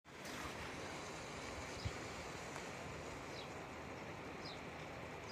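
Steady outdoor noise, with a few short, high, falling bird chirps scattered through it and a single soft thump about two seconds in.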